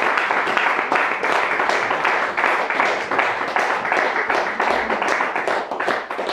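Audience applauding, a dense steady clapping that begins to die away near the end.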